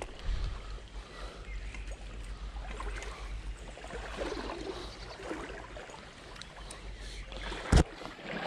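Shallow stream running over a stony riffle, with a steady low rumble under the water noise. A single sharp knock comes near the end.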